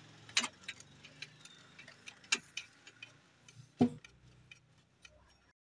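Sharp clicks and knocks of plastic and metal parts being handled inside a Xerox 5855 photocopier while its corona assembly is taken apart, with three louder knocks among lighter ticks. The sound cuts off abruptly near the end.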